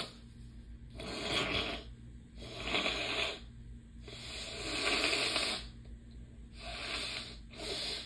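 A person blowing their nose hard into a tissue: about five forceful blows of rushing air, each about a second long, the longest and loudest about halfway through. The nose is congested by allergies.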